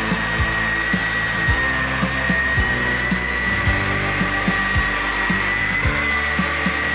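DeWalt 20V cordless random orbital sander running as it sands a wooden board: a steady high motor whine over the hiss of the abrasive pad on the wood.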